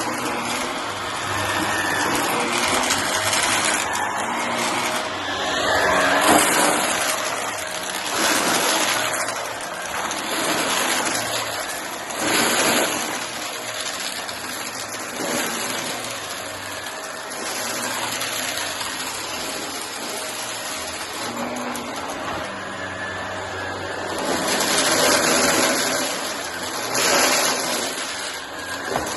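Shark vacuum cleaner running continuously while sucking up pieces of cardboard, a steady rushing noise that swells every few seconds.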